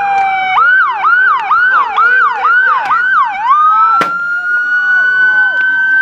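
Electronic police siren going from a slow falling wail into a fast yelp of about three sweeps a second, then back into a slow rising wail. A single sharp crack about four seconds in.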